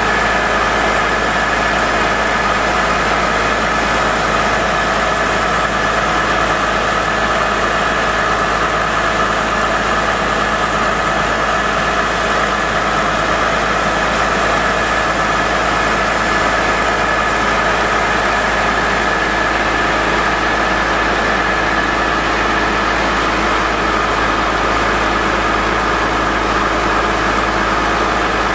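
Truck-mounted core drilling rig's power unit running steadily: an even engine drone with a constant high whine over it.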